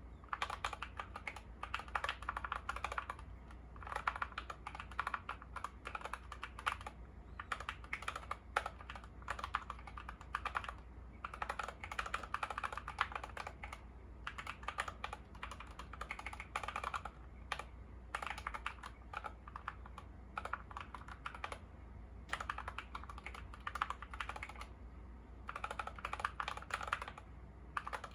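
Typing on a YUNZII KC68 mechanical keyboard with lubed Gateron Yellow linear switches and XDA keycaps: fast, continuous runs of keystrokes broken by short pauses every few seconds.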